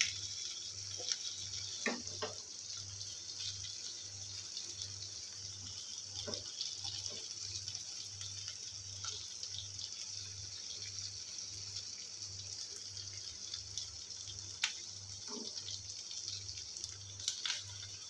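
Chicken pieces sizzling in their juices on a tawa (flat iron griddle) over a low flame, a steady hiss. Scattered short clicks and scrapes come from a slotted spatula turning the pieces on the pan.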